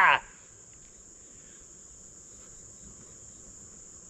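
Crickets trilling steadily at a high pitch, with the tail of a man's excited shout at the very start.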